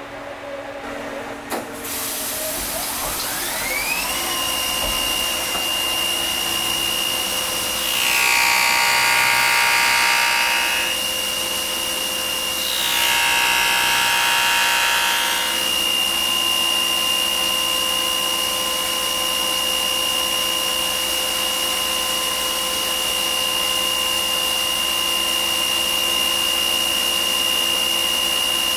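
CNC milling machine: a click, then the spindle spins up with a rising whine and settles into a steady high whine. Twice, about 8 and 13 seconds in, the end mill bites into the plastic handle blanks for a few seconds, louder and rougher.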